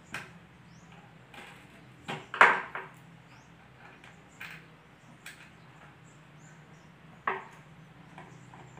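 A hand tool jabbed and twisted into a particleboard cabinet door, giving a handful of sharp woody knocks and scrapes at irregular intervals, the loudest about two and a half seconds in. This is the hollow for a concealed hinge's cup being dug out by hand.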